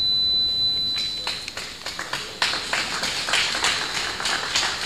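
Applause from a small seated audience, starting about a second in, with the separate hand claps easy to pick out.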